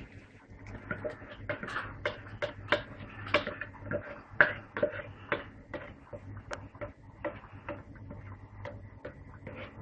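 Wooden spoon knocking and scraping against a stainless steel pot while sauce is poured in from a plastic jug: irregular light clicks and taps, about two a second at first, thinning out in the second half.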